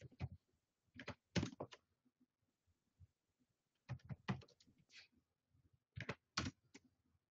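Computer keyboard typing in four short runs of quick key clicks, with pauses between them.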